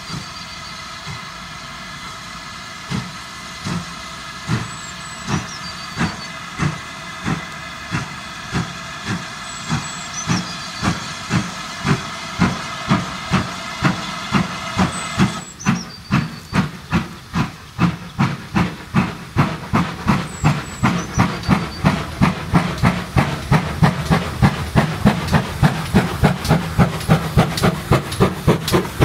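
GWR 2800 Class 2-8-0 steam locomotive 2807 accelerating with a train of coaches, its two-cylinder exhaust beats slow at first, then quickening and growing louder as it comes closer. Under the beats a steady hiss of steam cuts off suddenly about halfway through.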